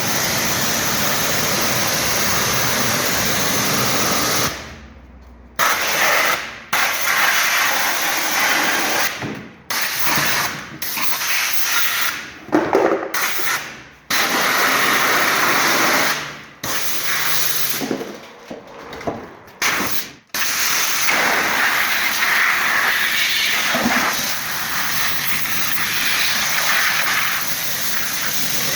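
High-pressure washer jet spraying water onto a washing machine drum, a loud steady hiss that cuts out and starts again several times as the trigger is released and pulled, blasting off built-up dirt.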